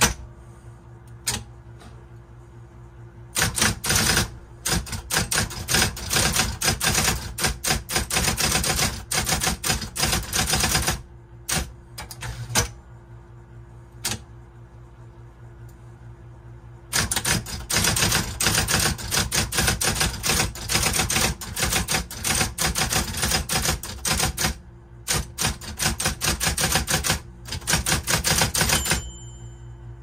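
Brother Correct-O-Ball XL1 electric typewriter being typed on: fast runs of keystrokes, broken by a pause with a few single strikes before the typing picks up again. The machine's motor hums steadily under and between the strokes.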